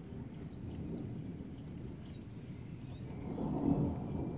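Thunderstorm ambience: a low rumbling noise with small birds chirping high above it, a quick trill among them. About three seconds in, the low rumble swells louder as thunder builds.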